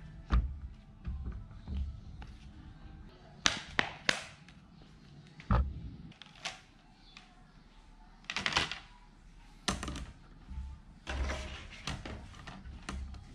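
An iPad and its cases being handled on a wooden table: a series of sharp knocks and taps as they are picked up and set down, with a few short rustling patches.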